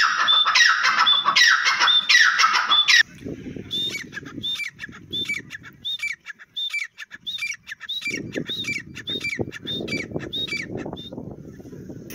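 Grey francolin calling: about three seconds of loud, harsh, rapid calls, then a long run of shrill repeated two-note calls at about two a second, over a low rumble. The calls stop shortly before the end.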